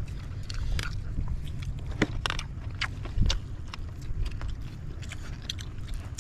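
People eating grilled fish and rice with their hands close to the microphone: wet chewing and lip smacks with many short scattered clicks, over a steady low rumble.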